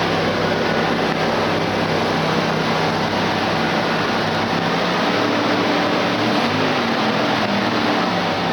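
1989 Ford F-150's engine idling steadily, having been started by jumping the starter solenoid's terminals; it runs fine, which points to a faulty original starter solenoid.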